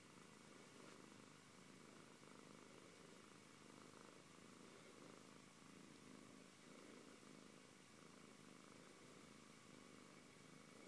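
Siberian cat purring softly and steadily while being stroked, the low rumble swelling and easing with each breath.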